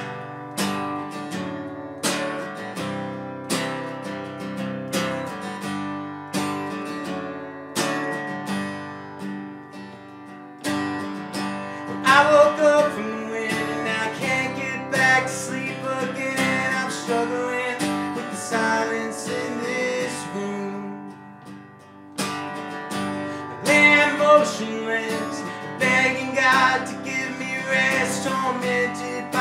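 An acoustic guitar is strummed, and about twelve seconds in a man's lead vocal comes in over it, in a live band performance of a folk-pop song.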